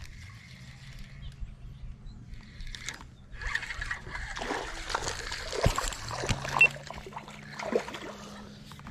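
Water splashing and sloshing close by, starting about three seconds in and going on irregularly for several seconds, over a low steady hum.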